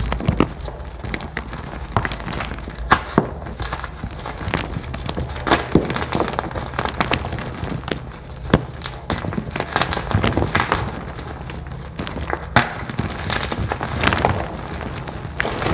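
Hands crushing and crumbling crunchy dried dye blocks: dense, irregular crunching and crackling as chunks break and grind into powder, with louder sharp snaps now and then.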